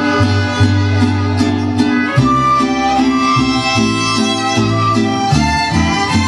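Mariachi band playing an instrumental passage: violins carry the melody over guitars and a deep bass strumming a steady rhythm.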